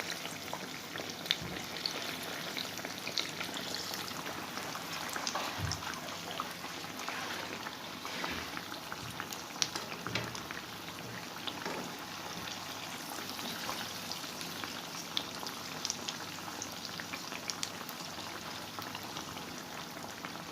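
Yeast dough beignets deep-frying in hot oil, browning: a steady sizzle with many small scattered crackles.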